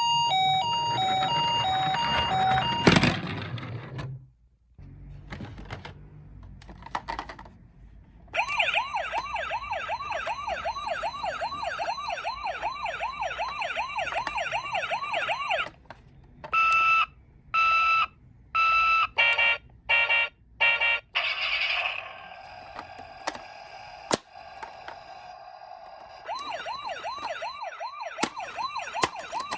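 Toy police cars and ambulances sounding their electronic sirens one after another. First a two-tone hi-lo siren, then a fast, repeating up-and-down yelp about a third of the way in, then stop-start beeping tones, and the yelp again near the end.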